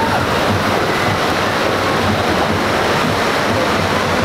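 Steady rush of churning whitewater in a theme-park river-rapids ride channel, with raft boats passing through.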